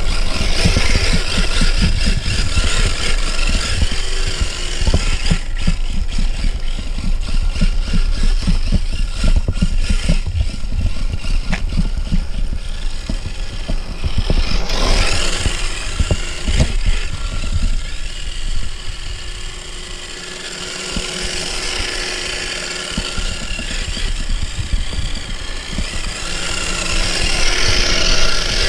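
Steady whir of small motors, with a heavy rumble of wind buffeting the microphone. The sound shifts about halfway through, dips briefly, and swells again near the end.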